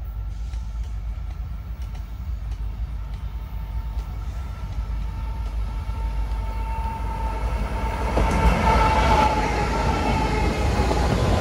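Norfolk Southern diesel freight locomotives approaching and passing at track side. The engine and wheel rumble grows steadily louder and is loudest as the lead units come by near the end.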